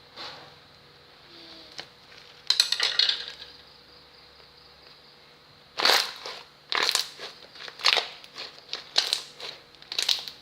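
Slime being squeezed by hand, its trapped air bubbles popping and crackling. One crackly burst comes about two and a half seconds in, then a run of sharp pops and squishes about every half second to a second over the second half.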